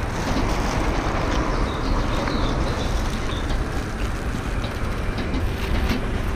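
Steady city street traffic noise: cars passing on the road.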